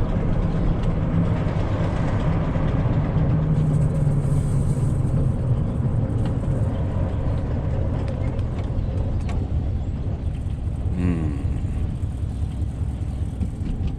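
Pickup truck engine and road noise while driving, a steady low running drone.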